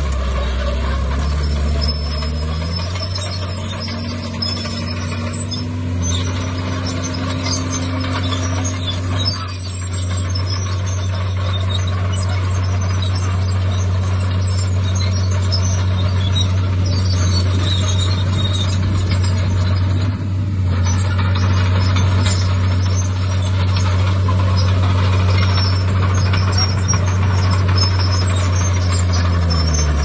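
Diesel engine of a Komatsu crawler bulldozer running hard. It revs up about two and a half seconds in, holds steady at high revs, and drops back near the end.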